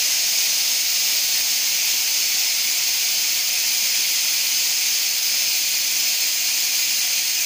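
Cooling air blowing steadily through an ACF bonding machine's hot bonding head after a bond, a loud even hiss while the head's temperature drops.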